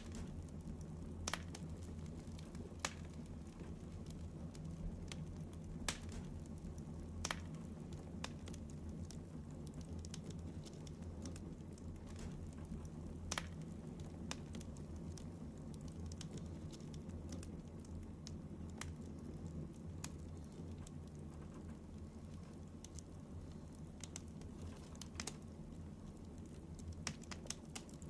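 Steady low hum with faint clicks and ticks scattered at irregular intervals, about a dozen of them. No snoring rhythm stands out.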